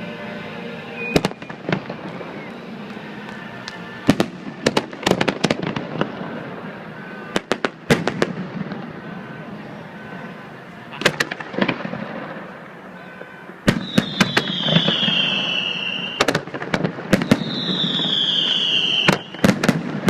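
Fireworks display: clusters of sharp bangs and crackling bursts, with two falling whistles in the second half.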